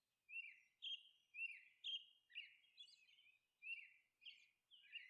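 Faint bird chirping: a steady run of short, high chirps, about two a second.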